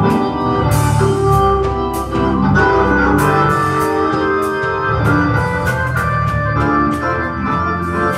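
Organ music playing held chords that change every second or so, over a steady beat of sharp percussive hits about twice a second.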